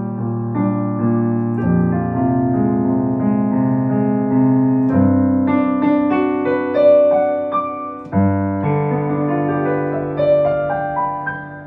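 Piano music: slow, sustained chords with a melody above them, each note struck and left to ring, the playing dying away near the end.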